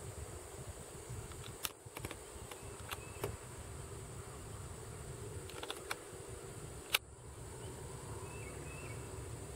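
Outdoor background: a steady high-pitched hum over a low rumble, broken by a handful of sharp clicks, the loudest about seven seconds in, with faint short chirps near the end.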